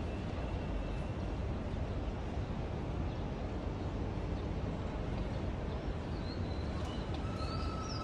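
Outdoor city ambience: a steady low rumble, with a few short bird chirps about six to eight seconds in.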